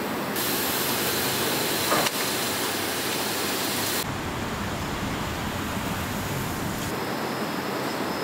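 Factory floor sound: a steady machinery hum, with a bright hiss over the first few seconds and a single sharp knock about two seconds in.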